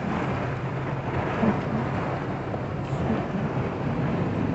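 Heavy rain and strong storm wind: a steady rushing noise with a low rumble underneath.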